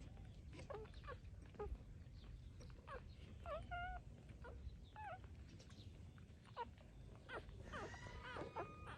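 Three-week-old puppies whimpering and squeaking as they nurse from their mother: short, high whines scattered throughout, with several overlapping near the end.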